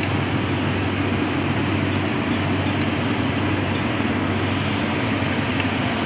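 Portable on-site shaft-machining rig running on a cement crusher shaft: its electric gear motor turns the tool cage through a chain drive while the cutter takes a skim pass on the journal, giving a steady machine noise with a constant low hum.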